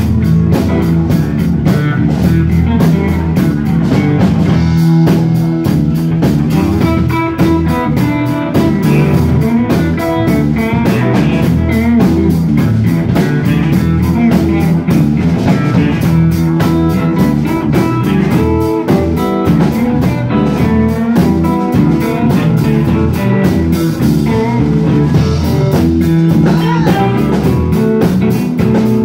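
Live blues band playing an instrumental stretch: two electric guitars, bass guitar and drum kit, with a steady beat and no singing.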